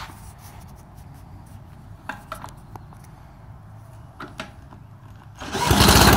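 A few light knocks and clicks as a socket on a Ryobi cordless drill is set onto the mower engine's flywheel nut. Near the end the drill spins the engine over and the push mower's small engine starts running, suddenly much louder.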